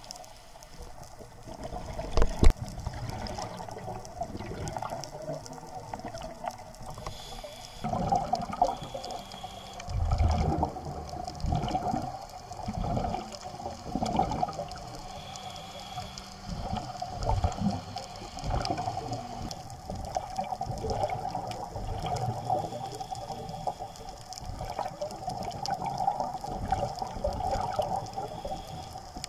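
Underwater bubbling and gurgling of a scuba diver's exhaled air from the regulator, muffled through the action camera's waterproof housing. A sharp knock comes about two seconds in, and from about eight seconds on the bubbles come in repeated gushes every second or two.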